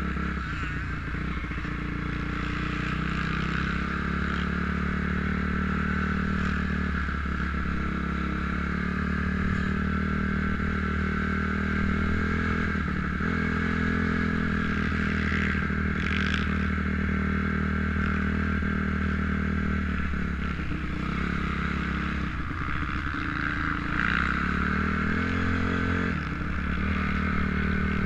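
2004 Honda CRF250R's single-cylinder four-stroke engine under way at moderate speed, the revs rising and falling several times with throttle and gear changes.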